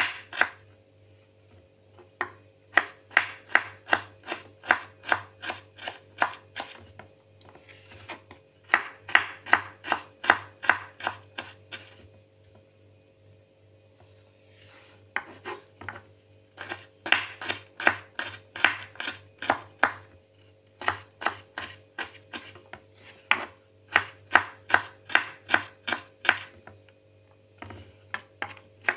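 Kitchen knife chopping garlic cloves on a wooden cutting board: runs of sharp knocks, about three a second, with short pauses between the runs.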